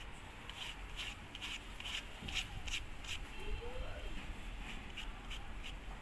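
Hands handling a Karbonn Jumbo K9 plastic keypad phone: a run of short, irregular clicks and rubs, a few each second.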